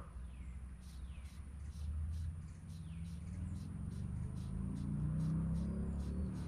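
Insects chirping in an even rhythm of about two to three pulses a second, with a few falling bird calls in the first few seconds. A low rumble builds up from about two seconds in and is loudest near the end.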